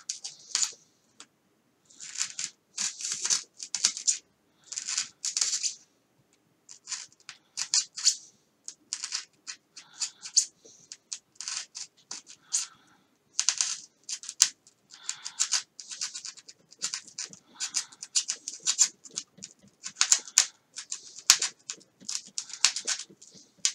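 A knife blade scoring a grid of cuts into foam: a long series of short, high-pitched scraping strokes, one after another with brief gaps. The blade is going dull from cutting foam.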